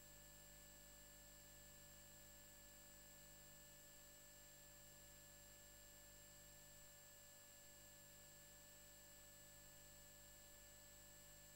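Near silence: room tone, a faint steady hiss with a few faint steady high tones.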